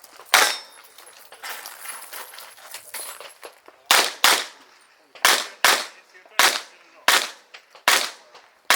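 Revolver shots fired in rapid competition shooting: a single shot right at the start, a pause of about three seconds, then eight more shots in quick pairs and singles, about half a second to a second apart.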